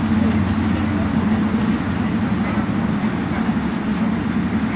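City bus cruising through a road tunnel, heard from inside the cabin: a steady low engine drone mixed with tyre and road noise.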